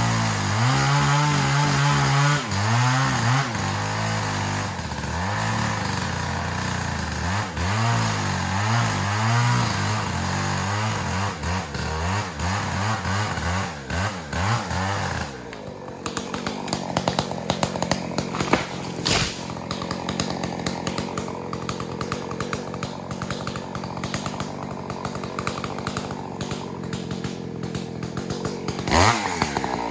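Two-stroke chainsaw running, its pitch rising and falling for the first half as it works, then changing about halfway to a rougher, ticking run, with a quick rising rev near the end.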